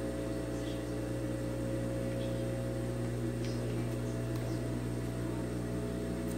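Steady electric hum of an industrial sewing machine's motor running idle, not stitching, with a few faint rustles and ticks of fabric being handled.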